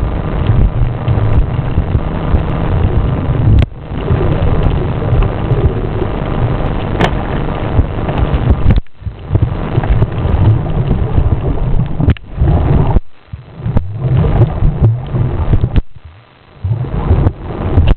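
Loud, steady rumbling noise of water around the camera, heaviest in the low end, broken by several short drop-outs in the second half.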